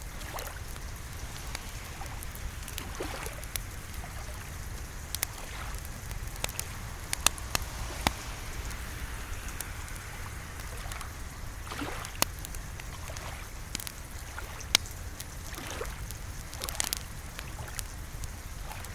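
Wood fire crackling in a fireplace, with irregular sharp pops over a steady low rumble and a soft wash of rain.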